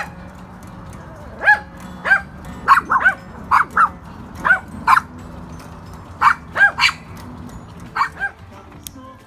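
Small Maltese dog barking in about fourteen short, high yaps, often in quick pairs, starting about a second and a half in and stopping near the end.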